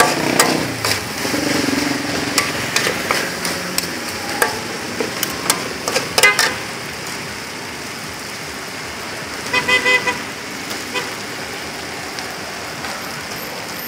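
Metal spatulas scraping and clicking against a shallow steel pan as corn kernels are stir-fried, over a steady street hum. About ten seconds in, a vehicle horn gives a quick string of short toots.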